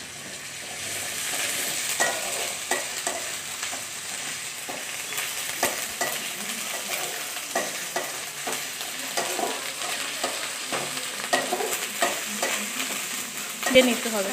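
Ginger and garlic paste frying with onions in hot oil in a steel kadai: a steady sizzle that builds in the first second or two, with a spatula scraping and clicking against the pan as it is stirred. A louder metal clatter comes near the end.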